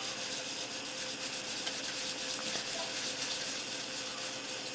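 An 8000-grit polishing cloth rubbed back and forth over the painted plastic body of a model car, giving a soft, steady scratchy hiss.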